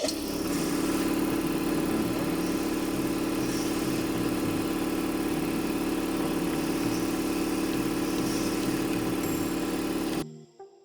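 Motor of a waste compactor machine running with a steady, loud hum, switching on at the start and cutting off abruptly about ten seconds in.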